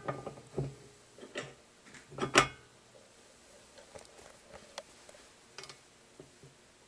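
Metal clicks and knocks as a reloading die is fitted and threaded into a Lee Loadmaster press. A few clicks come early, one sharp knock about two and a half seconds in is the loudest, and lighter ticks follow.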